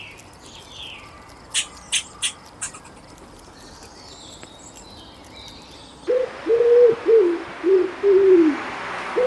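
A chipmunk's sharp, high chip calls, four quick ones in a row. About six seconds in, a pigeon starts cooing, a repeated low coo.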